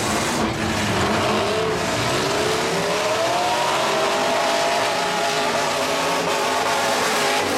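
Demolition derby trucks' engines revving hard together, several engine notes rising and falling at once, one climbing steadily a couple of seconds in, over a dense mechanical din with tyres spinning.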